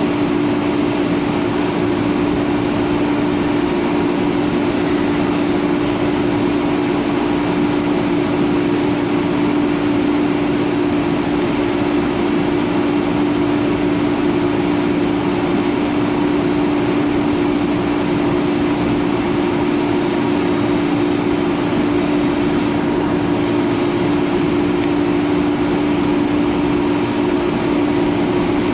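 A Long Island Rail Road train's steady mechanical drone, unchanging throughout, with a strong steady low hum.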